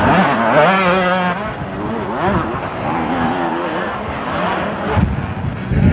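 Several motocross bikes' engines revving hard and overlapping, their pitches rising and falling as the riders work through the gears and corners. A louder, deeper engine comes in near the end.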